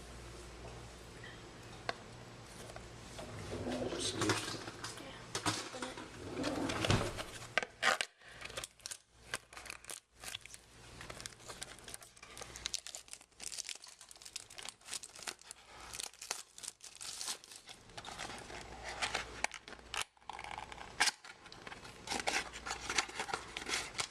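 Plastic wrapper of a baseball card pack being worked at, torn and crinkled by hand, in irregular crackles and sharp snaps. It is a pack that is hard to get open.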